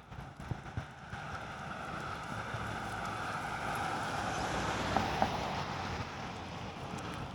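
A vehicle passing on a wet road: its tyre hiss swells about a second in, is loudest near the middle and slowly fades.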